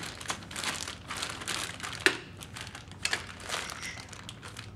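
Clear plastic parts bag crinkling as it is lifted and handled, with a sharper crackle about two seconds in.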